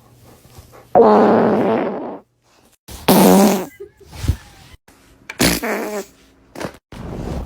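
Three loud, pitched farts about two seconds apart, the first the longest at just over a second.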